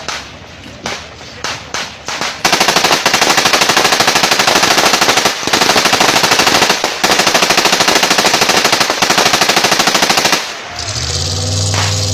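Gunfire: a few single shots, then sustained rapid automatic fire for about eight seconds with two brief pauses. It cuts off abruptly near the end, leaving a vehicle engine running.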